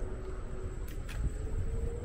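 Outdoor ambience: wind rumbling on the microphone, under a faint distant vehicle hum that slowly rises in pitch, with a single click about a second in.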